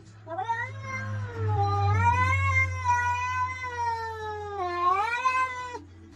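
Domestic cat yowling: one long drawn-out call of about five seconds that wavers up and down in pitch and cuts off suddenly. A steady low hum sits underneath.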